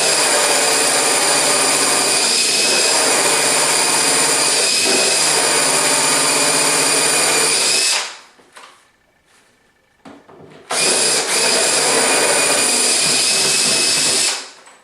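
Power drill driving the kit's smaller hole saw through the wooden door, a steady motor whine. It runs about eight seconds, stops briefly, then runs again for about three seconds and stops near the end.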